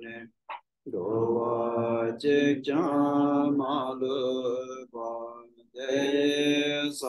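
A man's voice chanting a Tibetan Buddhist liturgy in a steady, sung recitation tone. It breaks off briefly just after the start and again for a moment after about five seconds.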